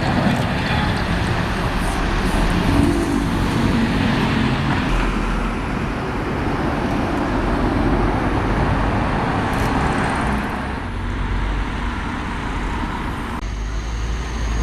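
Road traffic noise: vehicles running past on a street, with a steady rush of tyre and engine noise. The sound changes abruptly near the end.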